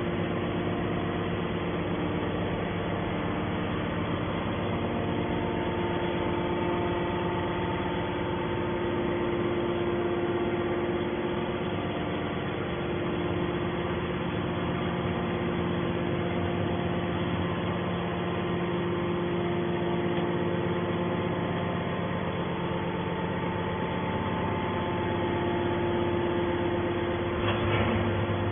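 Hydraulic scrap metal baler running, its motor and pump giving a steady hum with several held tones. A short knock sounds near the end.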